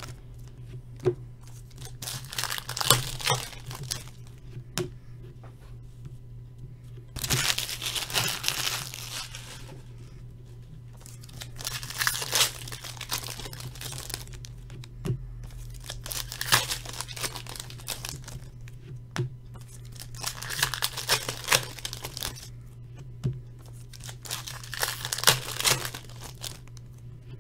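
Wrapping on trading card packs and a box torn open and crinkled by hand, in several rustling bursts with small clicks and taps of card handling between them. A steady low electrical hum sits underneath.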